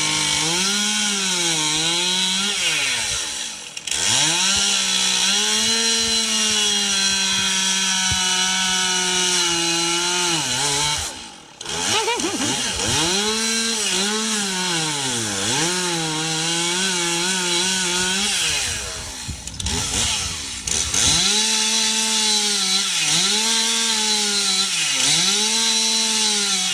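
Chainsaw carving a wooden log, running at high revs, its pitch sagging and recovering again and again as the chain bites into the wood. The engine drops off briefly three times: about four seconds in, near the middle, and about twenty seconds in.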